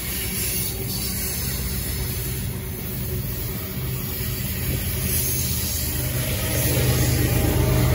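Freight cars of a passing train rolling by with a steady low rumble of wheels on rail. From about two-thirds of the way in, a CSX diesel locomotive's engine grows louder as it approaches.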